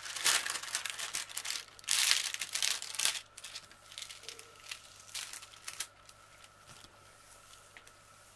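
Plastic-covered diamond painting canvas crinkling and rustling under hands pressing and smoothing it flat. It is loudest in the first three seconds, then a few fainter rustles die away.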